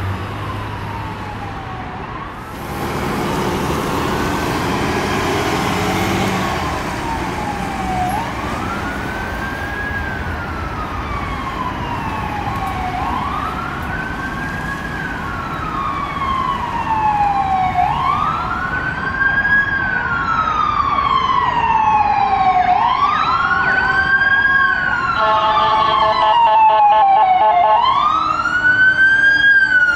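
Electronic wail siren on an approaching ambulance, each cycle rising quickly and falling slowly about every five seconds, growing louder toward the end. A passing vehicle adds a few seconds of road noise a couple of seconds in.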